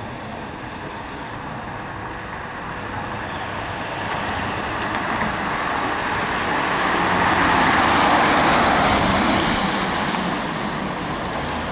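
Road vehicle passing close by, its engine and tyre noise building to a peak about eight seconds in and then fading again.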